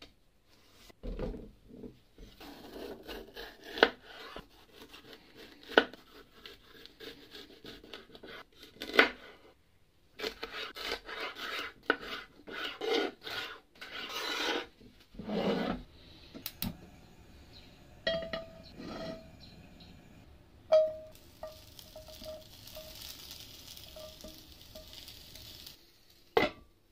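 Kitchen knife cutting vegetables on a wooden chopping board: runs of quick knocks of the blade against the board, mixed with the rub and scrape of vegetables being moved across the wood. Near the end a glass lid clanks down onto a pan.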